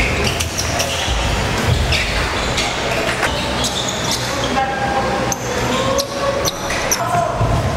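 Basketball game play on a hardwood gym court: the ball bouncing, with repeated sharp knocks and short squeaks, and voices calling out in the large hall.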